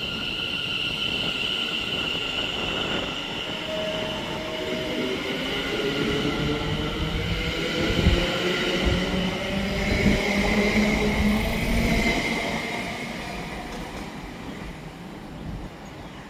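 A c2c Class 720 Aventra electric multiple unit pulling away from the platform: its electric whine rises in pitch as it gathers speed. A few heavy knocks come from the wheels about halfway through, where it is loudest, and the noise then fades as the train draws away.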